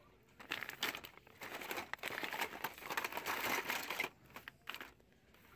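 Clear plastic packaging crinkling as it is handled and shuffled among other bagged items in a wire store bin. The crinkling runs from about half a second in until about four seconds in, then one brief rustle.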